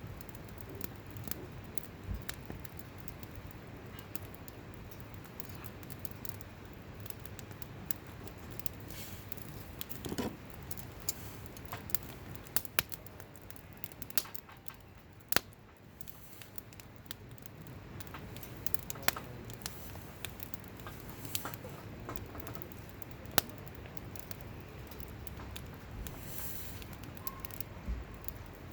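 Wood campfire crackling: irregular sharp pops and snaps over a low steady hiss, with the loudest snaps about halfway through and again a little later.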